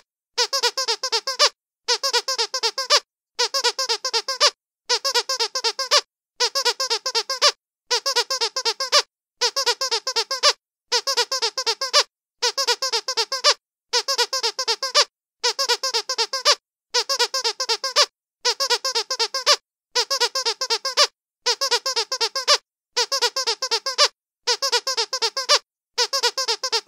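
Dog squeaky toy being squeezed over and over, in quick runs of several squeaks. The runs come about every second and a half, with short silent pauses between them.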